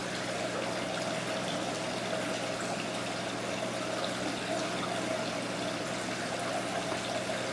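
Water running and trickling steadily in an indoor exhibit's water feature, over a low steady hum.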